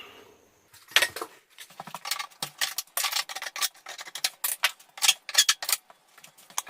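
A small trim strip being pried and pulled out of a window opening: a rapid run of sharp cracks and clicks that stops about six seconds in.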